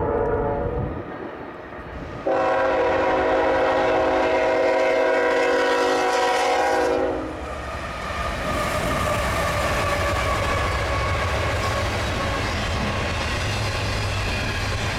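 Diesel freight locomotive's multi-chime air horn blowing: a blast that ends about a second in, then a long steady blast from about two seconds in to about seven seconds. After that, the steady rumble of the locomotives' diesel engines and the train passing at speed.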